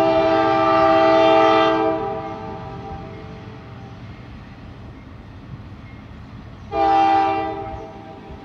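Norfolk Southern freight locomotive's air horn sounding a chord of several notes: one long blast of about two seconds, then after a pause a shorter blast about seven seconds in.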